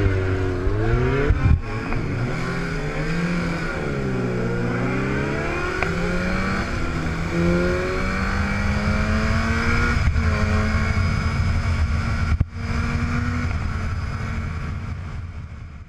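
Stunt motorcycle engines revving, the pitch swooping up and down repeatedly and then holding fairly steady; the sound fades out at the very end.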